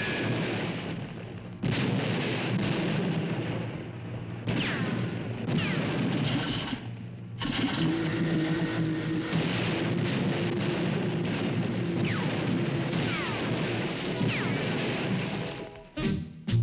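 Cartoon soundtrack of music under loud, noisy sound effects. From about halfway in, a steady buzzing drone of a small outboard motor runs until near the end.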